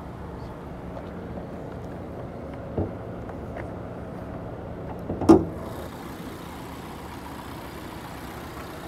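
2020 Mazda CX-9's 2.5-litre turbocharged four-cylinder idling steadily. There is a knock about three seconds in, then a loud clunk a little after halfway as the hood latch is released and the hood is lifted. The engine sounds brighter once the hood is open.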